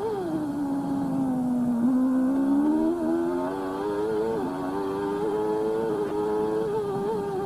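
Formula 1 car engine heard from onboard: the pitch falls over the first couple of seconds as the car slows, then climbs under acceleration. About four and a half seconds in a sharp drop marks an upshift, after which the engine runs at a fairly steady pitch with small wavers.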